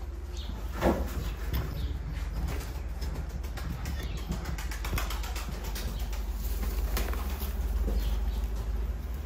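Taklacı (Turkish tumbler) pigeons flapping and fluttering their wings in a loft, a run of quick wing claps and flutters, the sharpest about a second in.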